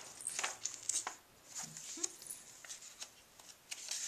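Loose old recipe-book pages rustling and crinkling as they are handled and turned over, in several short rustles.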